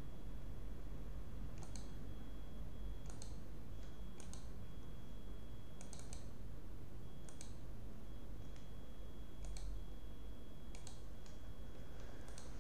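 Computer mouse clicking: single sharp clicks every second or two, some in quick doubles, over a steady low hum and a faint high whine.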